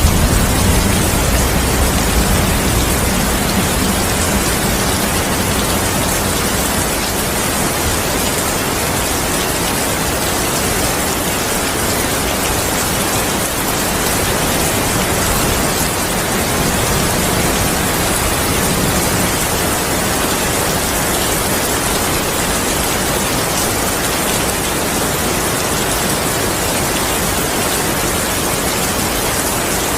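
Steady heavy rain falling, a dense even hiss of drops. The low rumble of a thunderclap dies away during the first few seconds.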